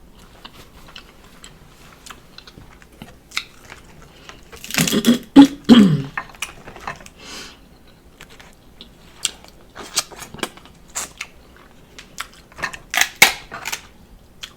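A person eating snow crab legs close to the microphone: irregular sharp clicks and cracks of shell along with chewing, louder for a moment about five seconds in and again near the end.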